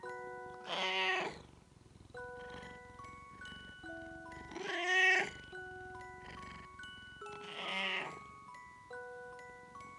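A domestic cat meowing three times: once about a second in, once in the middle, and once near the end. The middle meow is the loudest and longest. Gentle bell-like background music plays under the meows.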